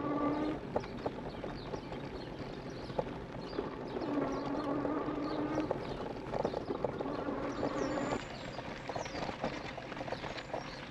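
E-bike rolling along a packed dirt trail, its tyres and frame rattling and knocking over small bumps. The electric drive motor whines steadily in three stretches of a second or two each, the last ending a little past the middle.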